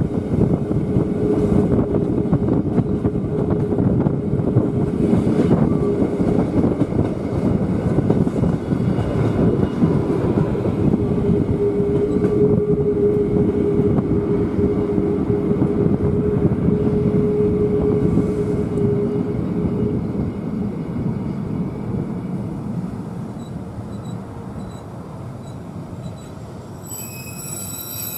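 Rhaetian Railway electric passenger train running uphill, heard from a carriage window: a dense, steady rumble of wheels on rail, with a steady mid-pitched tone through most of it. The rumble eases off after about two-thirds of the way, and thin high-pitched whining tones come in near the end.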